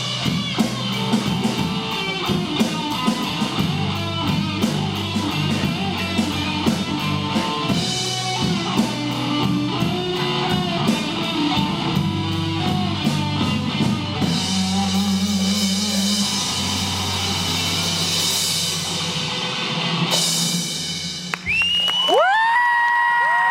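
Live rock band with electric guitar, bass and drum kit playing an instrumental blues-rock passage, building to held final chords with cymbal crashes. Near the end the band drops out and a few high sliding tones rise and fall.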